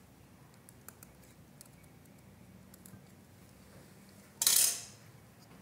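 A blade cutting through a desert rose stem and hands handling the cut, heard as faint scattered clicks. About four and a half seconds in comes one short, loud swish of noise lasting about half a second.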